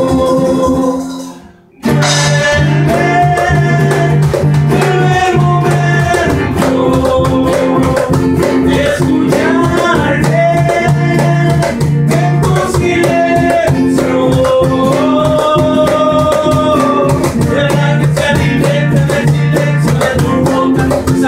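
Instrumental break of a Latin ballad: a held melody line over a steady bass and even shaker-like percussion. The sound fades out briefly about a second in, and the music comes back in just under two seconds in.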